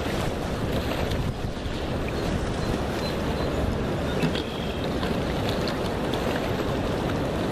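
Steady wind noise buffeting the microphone.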